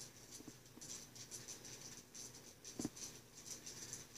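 Faint scratchy rustling of a small metal flashlight being turned over in the hand, with one soft knock nearly three seconds in.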